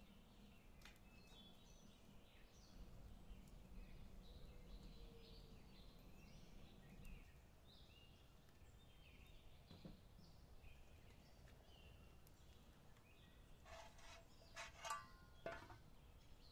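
Faint, scattered bird chirps. Near the end, a few sharp metallic clinks with a brief ring as an aluminium frying pan is set on the hearth's iron grate.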